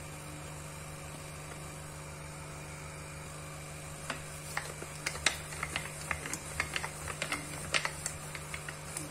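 Wooden rolling pin rolling out a stuffed aloo paratha on a countertop, giving irregular clicks and taps from about four seconds in. A steady low hum runs underneath.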